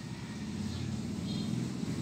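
Motor vehicle engine running with a steady low hum, growing louder toward the end.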